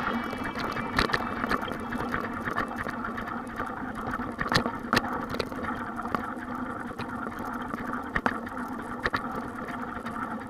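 Mountain bike riding over a bumpy dirt track, heard through a handlebar-mounted camera: a steady rumble of tyres and wind, with scattered sharp knocks and rattles as the bars jolt over bumps.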